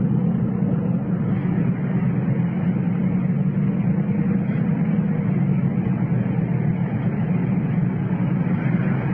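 Steady drone inside the cabin of a 1993 Lincoln Mark VIII under way: its 4.6-litre V8 running at an even pace along with tyre and road noise.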